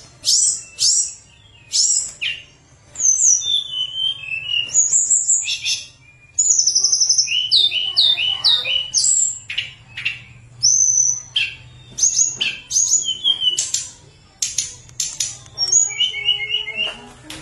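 A caged tledekan gunung songbird singing. It gives a long, varied run of loud whistled phrases: sliding notes, quick trills and repeated chips, with short pauses between them.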